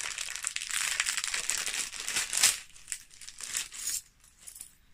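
Packaging crinkling and rustling with many small clicks as a boxed necklace is unpacked by hand, loudest about halfway through and fading out near the end.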